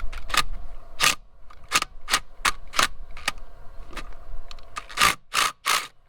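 About ten sharp, irregular metal knocks, a few tenths of a second apart with a short pause before the last three, from tools working on a nut welded over a twisted-off bolt to try to break it loose.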